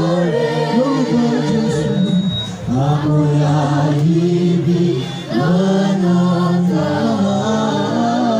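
Church choir singing in sustained phrases, broken by two short pauses about two and a half and five seconds in.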